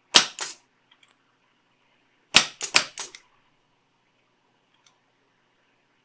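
Solenoid-operated electric desoldering pump firing: sharp mechanical clacks, a pair just after the start and three more about two and a half seconds in, as its plunger snaps to suck molten solder off integrated-circuit pins.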